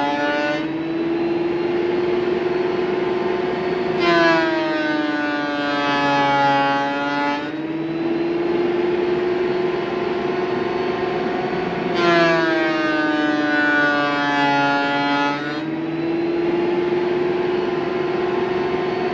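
Electric wood planer running, with walnut boards fed through it in turn. Its motor whine dips slightly in pitch and grows brighter and harsher each time a board is in the cut, about 4 s and 12 s in and again just at the start, then rises back to a plainer whine between passes.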